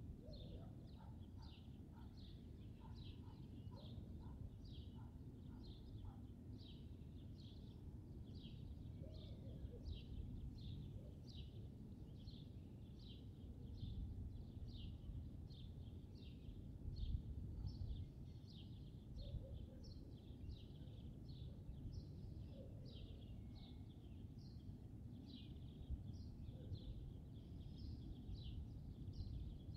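A small bird repeats a short high chirp about twice a second over a low outdoor rumble that swells now and then. A few lower chirps from another bird come in the first several seconds.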